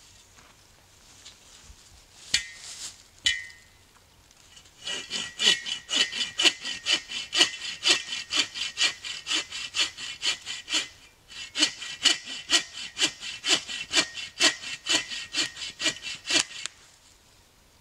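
Hand saw cutting through a dead, rotten branch: two short starting strokes, then steady back-and-forth sawing at about two strokes a second, with a brief pause partway through, stopping shortly before the end.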